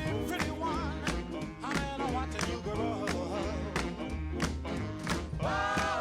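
Background music: a song with a singing voice over a steady drum beat and bass.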